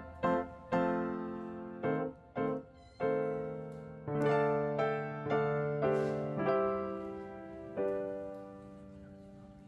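Background piano music: notes and chords struck a second or so apart, each ringing out and fading, the last one dying away near the end.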